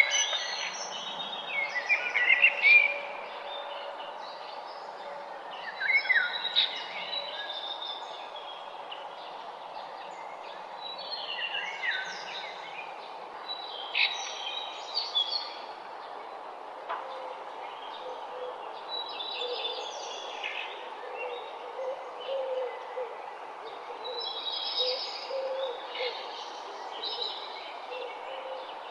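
Morning birdsong: several birds singing and chirping in short, scattered phrases over a steady background hiss, with a few softer, lower calls in the second half.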